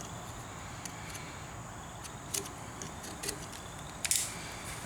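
A few faint, short scrapes and clicks as a knife cuts through the glued-on rubber handlebar grip, the loudest about four seconds in, over a steady low hiss.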